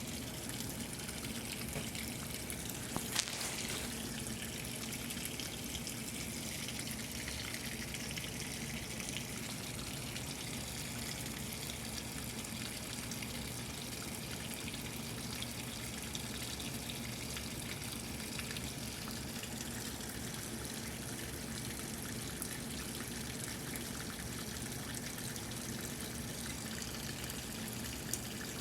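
Washing machine running with a steady rush of water over a low hum, with a single click about three seconds in.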